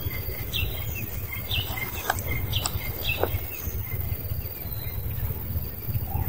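Forest ambience with scattered high chirps, a faint steady high tone and three quick steeply falling whistles about two to three seconds in, over a steady low rumble.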